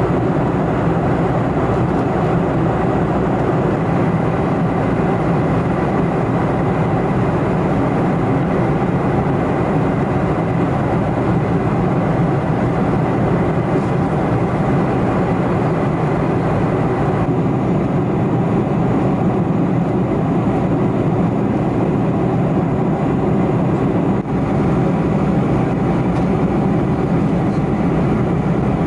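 Steady cabin drone of a Boeing 747-400 in flight: the roar of its General Electric CF6-80C2 turbofan engines and rushing airflow, heard from a window seat beside the wing, with a faint steady whine in it.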